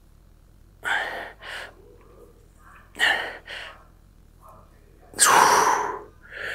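A man breathing hard from exertion during a set of dumbbell lateral raises: short breaths in pairs about every two seconds, then a longer, louder breath about five seconds in.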